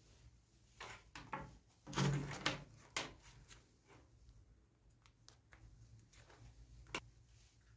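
Gloved hands handling and sorting electrical wires and a small adapter's barrel plug: irregular rustling and light knocks, loudest about two seconds in, with a sharp click near three seconds and another near seven.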